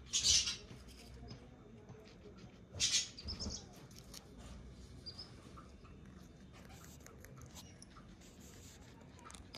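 Guinea pig biting and chewing a fresh green pod: small crisp nibbling clicks throughout, with two louder crunches, one just after the start and one about three seconds in.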